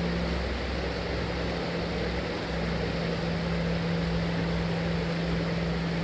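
Steady rush of running creek water, with a low steady hum and an unsteady low rumble underneath.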